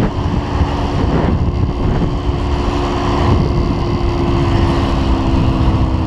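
Yamaha two-stroke motorcycle engine running steadily at part throttle under way, with wind on the microphone. Its carburettor mid-range is tuned so it runs smooth and clean, like a fuel-injected engine.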